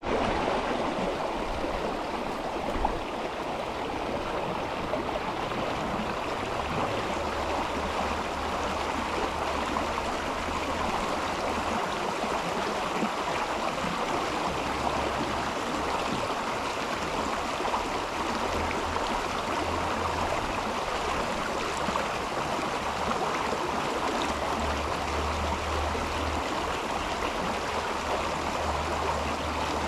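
River water flowing in a steady, constant rush, with a low rumble that comes and goes underneath.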